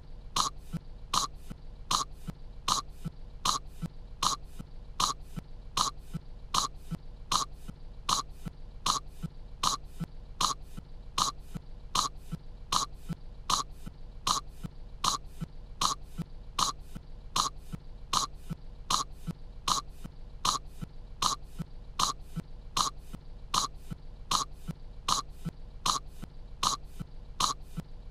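A cartoon girl character coughing over and over, a short cough loop repeating evenly about three times every two seconds, as if choking on kettle corn.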